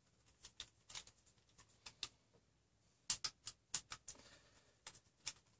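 Faint, irregular clicks and ticks of a screwdriver working an M3 bolt into a printed plastic extruder body. They come scattered at first, with a quicker run of clicks a little past halfway.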